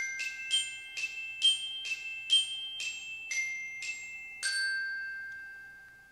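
Short logo jingle of bell-like mallet-percussion notes, struck about two a second. The last note, about four and a half seconds in, rings on and fades away.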